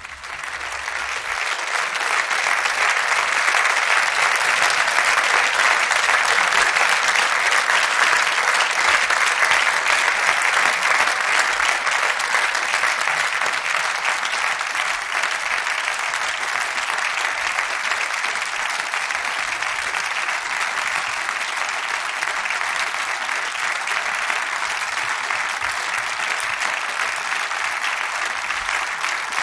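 Audience applauding at the close of a stage performance. The applause breaks out suddenly out of silence, swells over the first couple of seconds, then holds steady, easing a little in the second half.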